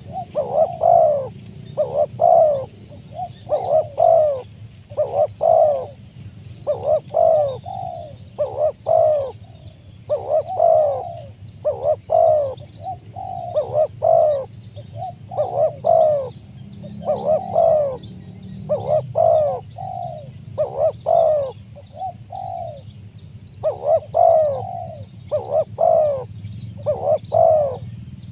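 Spotted dove cooing over and over, a crisp call of two or three quick coos repeated about every second and a half. Faint chirping of small birds underneath.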